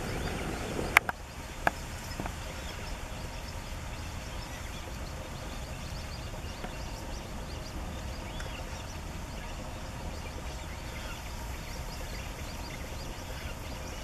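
Outdoor pond ambience: a steady low background noise with faint short chirps scattered through it. Two sharp clicks come about a second in, less than a second apart.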